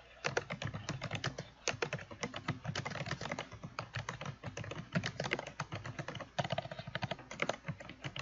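Fast, continuous typing on a computer keyboard: a steady stream of keystroke clicks as a phrase is typed out.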